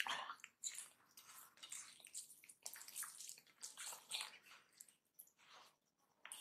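Fingers squishing and mixing boiled rice into runny dal on a plate: soft, irregular wet squelches.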